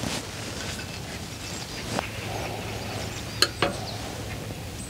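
Light clicks and taps of metal utensils and a metal pie-iron sandwich maker as bread and butter slices are laid into it. There is a soft tap about two seconds in, and two sharp clinks close together about three and a half seconds in are the loudest sounds.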